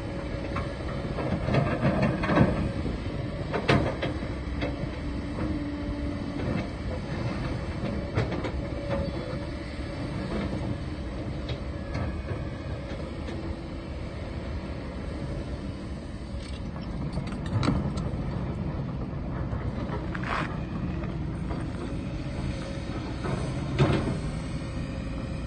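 Kobelco SK140 hydraulic excavator's diesel engine running steadily as it digs and loads rock, with a steady hum under it. Sharp clanks of the steel bucket and rock come several times, the loudest a couple of seconds in and others near the middle and near the end.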